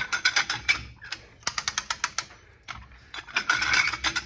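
Fast ratchet clicking, about ten clicks a second in short runs, as a hand-worked ratcheting puller on a chain anchored to a post draws an 11,000-pound machine on UHMW plastic feet across the floor. A rougher scraping stretch comes near the end.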